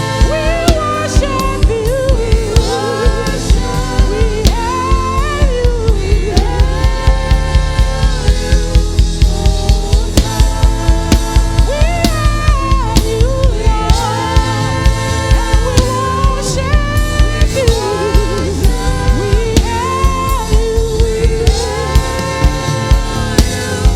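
Gospel praise music: singing with vibrato over a band, with drums keeping a steady beat of about four strokes a second and a full bass underneath.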